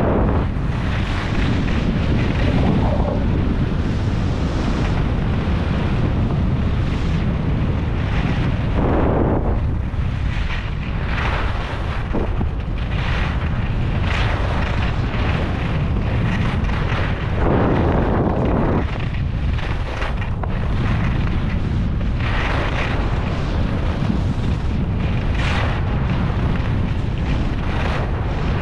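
Wind buffeting the action camera's microphone at downhill skiing speed, about 45 km/h, as a loud, steady low rumble. Over it come the hiss and scrape of skis turning on packed snow, swelling at irregular moments every few seconds.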